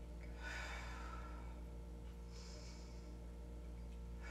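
A person taking slow, deep breaths while holding a yoga pose: two long, soft breaths, each about a second, over a low steady hum.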